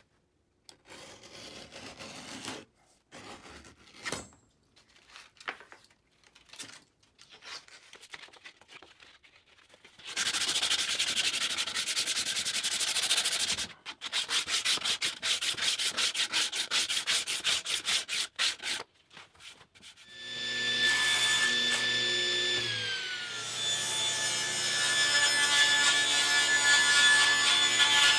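Woodworking on a wooden wheelbarrow handle: short, irregular hand-tool strokes on wood, then several seconds of continuous sanding, then a run of rhythmic sanding strokes. About twenty seconds in, a table saw's motor starts running with a steady hum that dips in pitch once and then holds.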